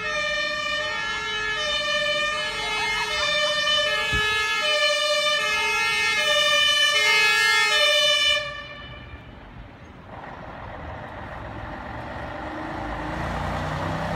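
Fire truck's two-tone siren alternating between a high and a low pitch and growing louder as it approaches, then switched off abruptly about eight seconds in. After that the truck's engine and tyres are heard growing louder as it comes closer.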